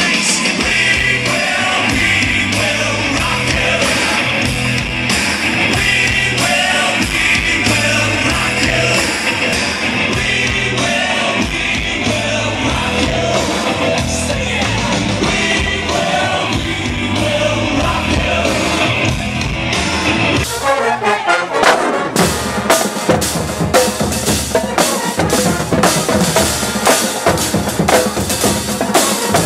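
Music with a steady bass beat for about the first twenty seconds. Then it breaks off and a marching band drumline comes in with quick, sharp snare and bass drum strokes.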